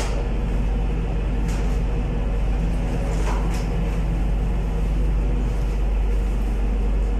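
Steady low drone of ship's engine-room machinery, heard from inside the main engine's enclosed scavenge space, with a few faint knocks near the middle.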